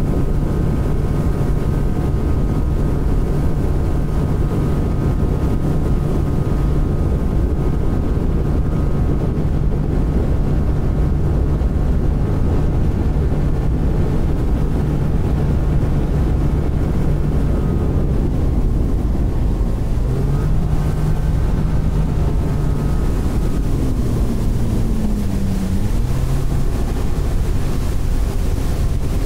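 Boat's outboard motor running at speed, a steady drone mixed with wind on the microphone and water rushing past the hull. In the last third the engine note wavers and dips in pitch.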